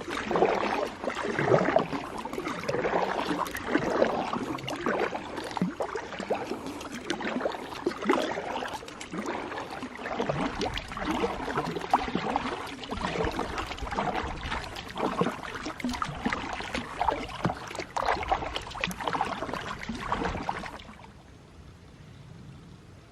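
Kayak paddle strokes splashing and swishing through lake water, one stroke after another every second or two, stopping a little before the end.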